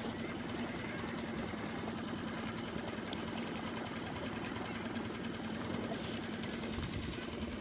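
A skiff's outboard motor running steadily, a constant hum with a fast, even pulse.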